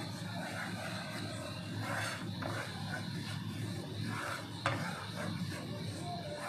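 A wooden spoon stirring and scraping a thick peanut and cashew paste around a nonstick frying pan, in uneven rubbing strokes, with one sharp knock of the spoon near the middle.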